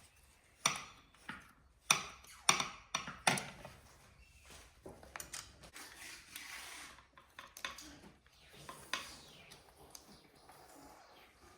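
Sharp metal clinks and knocks from handling a metal pipe frame and an Allen key, about half a dozen in the first few seconds, then softer handling noise.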